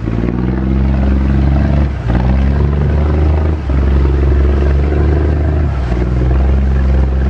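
Speedboat engine running loudly with a steady drone, its pitch shifting a little with short dips about two and three and a half seconds in.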